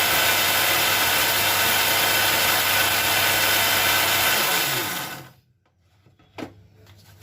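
Kitchen mixer-grinder with its small jar grinding dry whole spices to a fine powder. The motor runs loud and steady, then is switched off about four seconds in and winds down with a falling pitch. A single knock follows about a second later.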